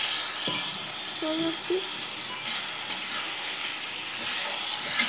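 Masala sizzling as it fries in a kadhai, stirred with a metal spatula that scrapes and knocks against the pan a few times.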